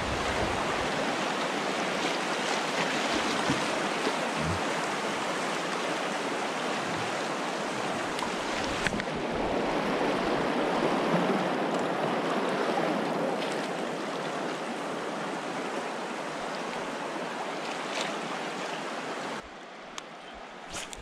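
Fast river current running through rapids around a kayak: a steady rushing of water, which drops abruptly to a quieter hiss near the end.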